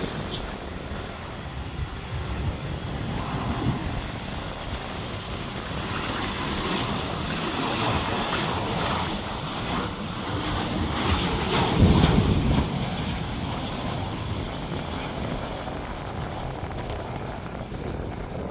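Boeing 737-800 airliner's CFM56 turbofan engines on landing approach at low power: a steady jet rush that swells as the aircraft passes close overhead, loudest a little past the middle, then fades as it descends toward the runway.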